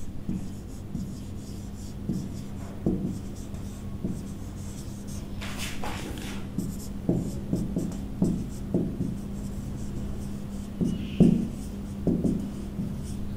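Marker pen writing on a whiteboard: short, irregular squeaks and taps as letters are stroked out, over a steady low hum.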